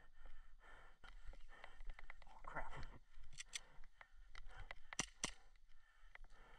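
Footsteps and rustling through long grass with small handling clicks, and a few sharp clicks about halfway through and again near five seconds.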